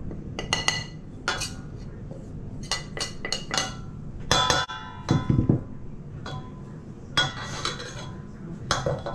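Metal utensil clinking and scraping against a ceramic plate and a stainless steel mixing bowl while salad is scraped off the plate and stirred: irregular clinks, some in quick clusters, several ringing briefly.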